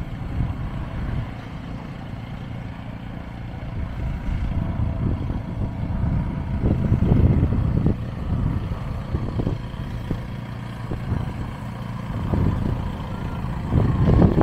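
Wind buffeting the microphone: a low, gusting rumble that swells and fades, with a few soft thumps.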